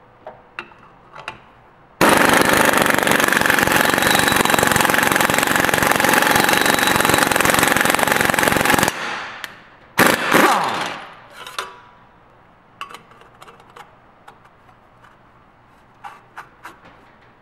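Impact wrench hammering on the centre nut of an exhaust pipe stretcher, forcing the expander out to stretch the end of a steel exhaust pipe. It runs steadily for about seven seconds, then gives a shorter second burst that winds down, with a few light metal clicks before and after.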